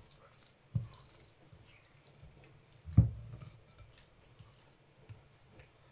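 Soft, sticky yeast-free kefir dough being tipped out of a bowl onto a silicone baking mat: two dull thumps, the louder about three seconds in, with faint clicks and handling noises between them.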